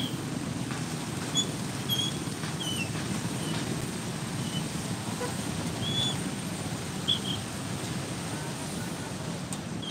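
Steady street din from traffic and a crowd below, with short high chirps now and then.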